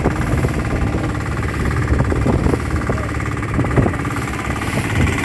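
Boat engine running steadily, a dense low rumble with a fine, even buzz and scattered knocks.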